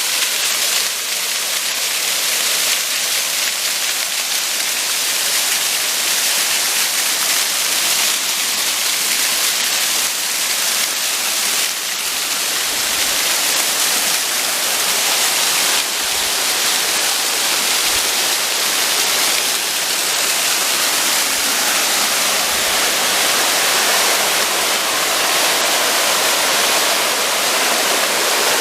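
Mountain stream running down a steep slope: a steady, loud rush and hiss of falling water.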